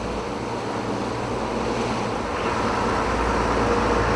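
Steady drone of a game-fishing boat's engine under way, with wind and sea noise, slowly growing louder.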